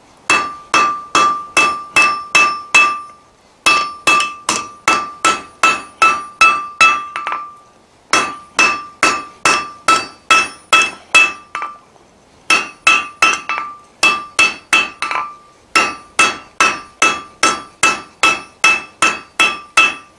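Hand hammer striking a red-hot bar of half-inch square mild steel on an anvil, chamfering its edges. The blows come in runs of about three a second, each with a clear metallic ring, broken by short pauses.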